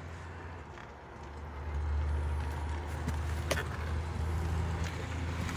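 Low, steady hum of an idling vehicle engine, louder after about two seconds, with one light click about three and a half seconds in.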